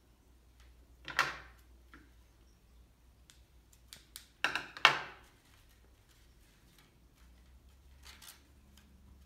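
Paper being handled and cut with scissors, heard as a few short rustling snips: one about a second in, two louder ones close together around the middle, and a fainter one near the end.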